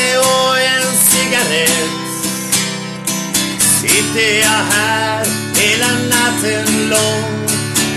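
Swedish troubadour song: acoustic guitar strumming chords in a steady rhythm, with a man's voice singing a wavering melody over it.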